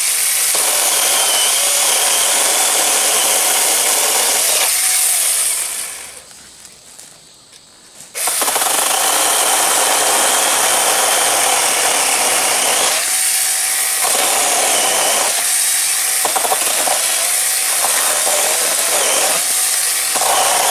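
Small handheld electric chainsaw running with a steady whine as it cuts through tree branches and trunk wood. It stops about five seconds in and starts again about three seconds later, with a few brief dips as it bites.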